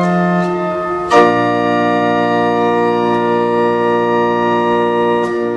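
Church organ playing sustained chords, moving to a fuller chord about a second in that is held and then released near the end.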